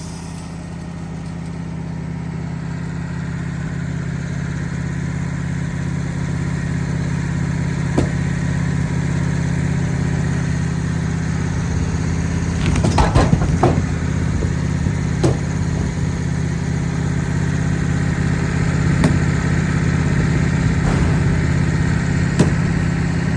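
Woodmizer LT15 band sawmill's engine running steadily under load as the blade cuts through a crooked pine log, growing gradually louder. A few sharp knocks come through, a cluster of them about halfway through.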